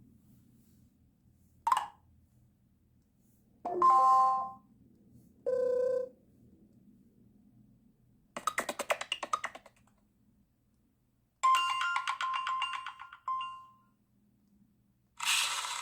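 Mobile phone notification sounds played one after another, about six short ones each a second or so long with pauses between. Some are simple chimes or beeps; two are made of rapid pulsing notes.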